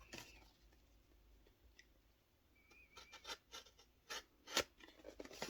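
Unboxing items and packaging being handled: faint scratching and rubbing, then a few sharp clicks and taps in the second half, one short squeak among them.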